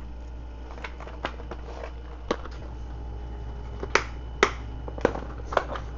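A series of sharp clicks and taps from small parts being handled on a workbench, the loudest two close together about four seconds in, over a steady low hum.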